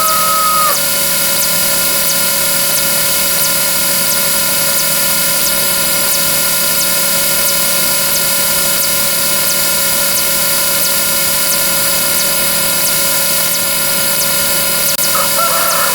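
A dense, steady wall of layered, overlapping sound effects from a number count-up: many sustained horn-like tones with faint, evenly spaced clicks. About fifteen seconds in, a short cry with a rough start and a held high note rises over it, fitting a rooster crowing.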